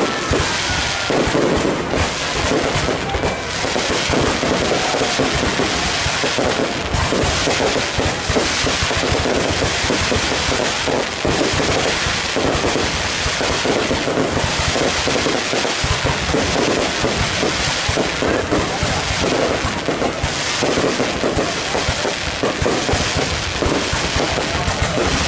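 Fireworks display: a dense, continuous barrage of aerial shell bursts, many loud bangs and crackles overlapping with no pause.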